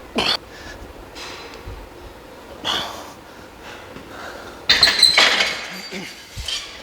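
A man's heavy, forceful breathing from the strain of front squats, with three hissing exhalations; the longest and loudest comes about five seconds in.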